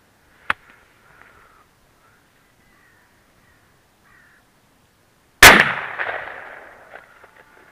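A single loud gunshot about five and a half seconds in, fired at a fox, its report echoing and dying away over about a second and a half. A sharp click comes about half a second in.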